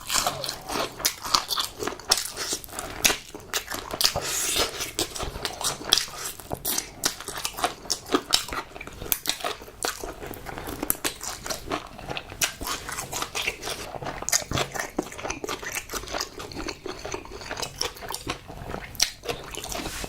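Close-miked biting and chewing of crunchy food, with many quick, irregular crisp crunches.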